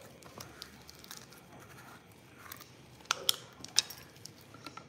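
Jar of Creole butter marinade being handled, with a few faint knocks. About three seconds in comes a cluster of sharp clicks and knocks as its screw-on lid is twisted off and set down on a stone countertop.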